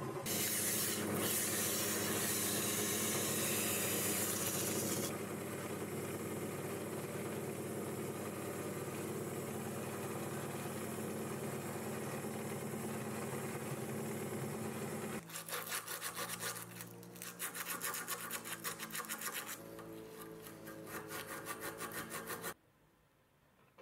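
A small benchtop metal lathe spins a steel rod while it is worked with tooling and an abrasive pad held by hand: a steady machine hum under a hissing scrape, loudest for the first five seconds. About fifteen seconds in, this gives way to an abrasive pad scrubbing a steel rod clamped in a vise, in quick back-and-forth strokes that stop abruptly near the end.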